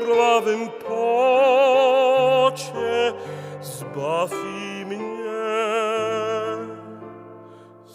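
Slow worship song music: a lead melody holds long notes with strong vibrato over sustained chords and low bass notes, growing quieter toward the end.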